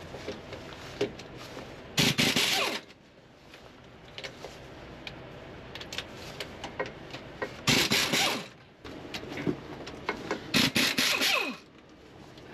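Cordless impact wrench undoing the driveshaft bolts on a Scania truck: three short bursts of hammering, each winding down as the trigger is released, with light metallic clicks and rattles between them.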